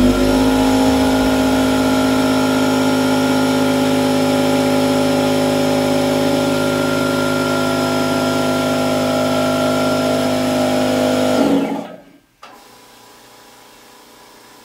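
Red pancake air compressor spinning up and running loud and steady, then winding down and stopping about 11.5 seconds in. After a brief silence the California Air Tools 6010LFC ultra-quiet compressor, a 1 HP oil-free dual-piston pump turning at 1400 RPM, starts and runs as a much quieter steady hum.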